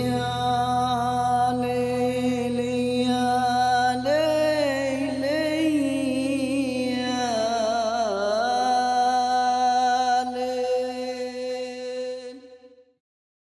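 Background music: a long-held, chant-like sung voice over a low drone, with wavering ornamented notes in the middle. It fades out near the end.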